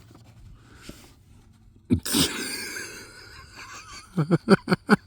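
A man's sudden breathy gasp of astonishment about two seconds in, trailing off over a second or so, then a quick run of short stammering sounds near the end.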